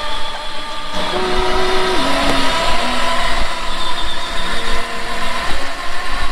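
12-volt four-wheel-drive ride-on UTV's electric wheel motors running under way, a steady whine with some shifting tones, together with its tyres on concrete.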